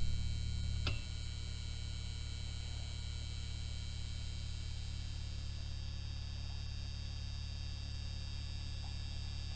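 Steady low electrical hum, like mains hum, with faint high steady tones above it. A louder sound dies away over the first second, and there is one faint click about a second in.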